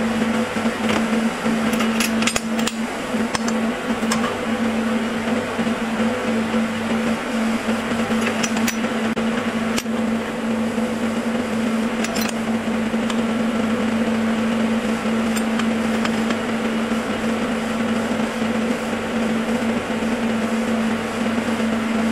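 Steady machine hum and hiss from the workshop, with a few sharp metallic clinks of steel spanners being handled and set down on a steel bar and bench: a cluster about two seconds in, then single ones around eight, ten and twelve seconds in.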